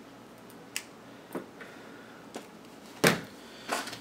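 Soldering tools handled on a wooden worktable: a few light clicks and taps, then a louder knock about three seconds in and another tap just after.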